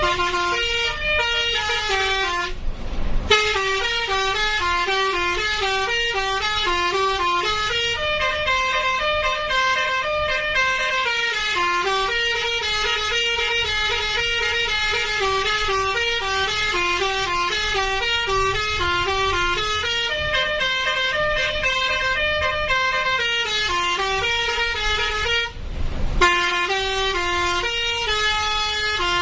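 Telolet basuri multi-tone bus air horn playing a running melody, one note after another in quick steps. The tune is broken twice by a brief rush of noise, about three seconds in and near the end.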